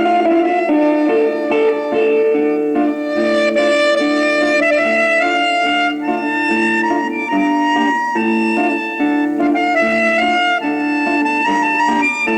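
Instrumental Japanese popular song played from a 1960s flexi-disc record: a lead melody of long held notes over a band accompaniment, with the notes changing every second or so.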